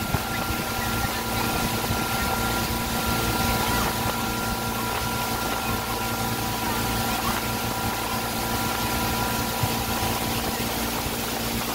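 A ski boat's engine runs steadily at towing speed with an even hum. The hiss of the churning wake and wind lies under it.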